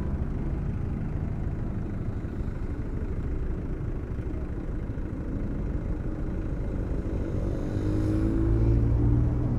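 Road traffic with a low, steady engine rumble. About seven seconds in, a vehicle engine revs up, rising in pitch and getting louder.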